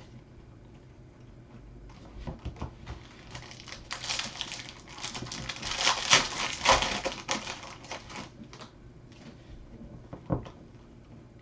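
Trading cards and their foil pack wrapper being handled: a run of quick crinkles and clicks, thickest in the middle, then one sharper click near the end.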